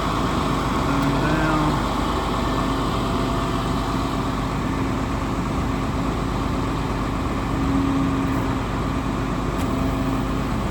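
International DuraStar's 9.3-litre MaxxForce diesel engine running steadily while the service crane is worked, with a faint low hum that comes and goes.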